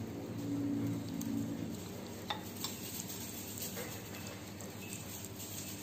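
A cat chewing and licking wet cat food from a plate, a soft moist smacking, with a few light clicks about two and a half seconds in and a brief low tone about half a second in.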